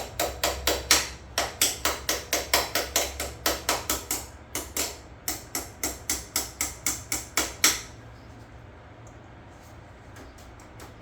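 Rapid hammer blows on a mower's metal parts, about four a second with a short pause around the middle, stopping about eight seconds in.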